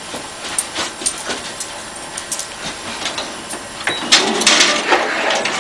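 Scattered light knocks, then about four seconds in an office photocopier starts running with a steady mechanical whir as it scans a face pressed to its glass.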